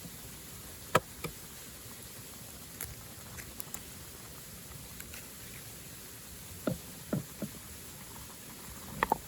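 Wood campfire crackling: scattered sharp pops and snaps over a steady low hiss, the loudest about a second in and a quick pair near the end.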